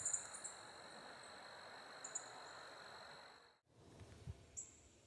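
Faint outdoor marsh ambience: a steady high insect tone over soft hiss, with a few short, high bird chirps. About three and a half seconds in it drops out briefly and goes on quieter, with two more high chirps.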